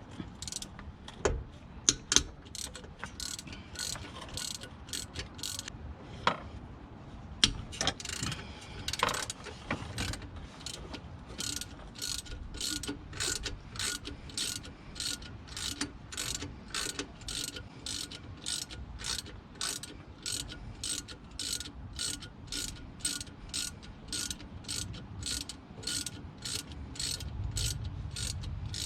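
Hand ratchet wrench turning a bolt, clicking in steady strokes about twice a second. It is preceded by a few scattered metallic clinks and knocks of tools.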